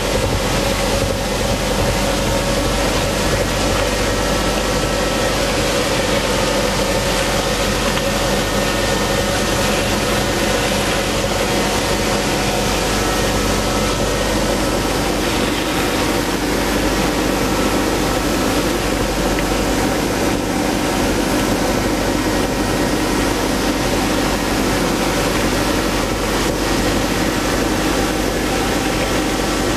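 Ice edger running steadily, its motor droning with a constant pitch while the cutter works along the ice at deep cutting depth.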